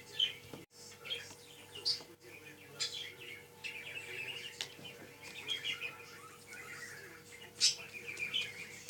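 A small bird chirping and twittering in quick runs of short notes, over a faint steady hum.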